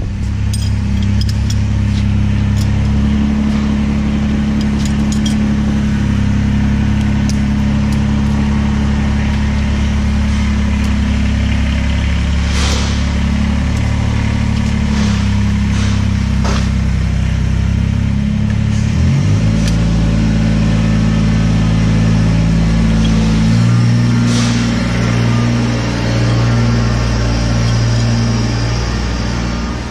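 Kubota compact tractor's diesel engine running steadily; about two-thirds of the way through its pitch drops as the revs fall. A few sharp knocks are heard around the middle.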